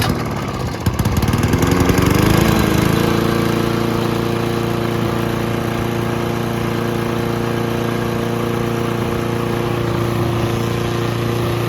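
Small gasoline push-mower engine whose pitch wavers and climbs over the first few seconds, then runs steadily at speed.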